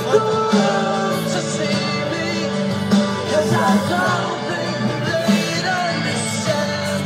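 Rock-and-roll style song with singing.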